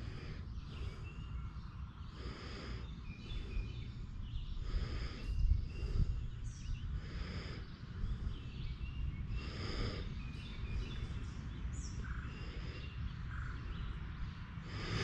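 Wind buffeting the microphone in a steady low rumble that swells several times, with a few faint, short bird chirps.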